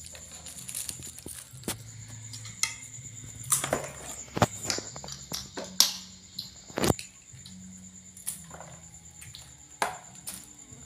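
Metal spoon scraping and clinking in a ceramic bowl while mixing raw sliced beef with sesame seeds, then an egg cracked against the bowl: a scattered series of sharp taps and clicks.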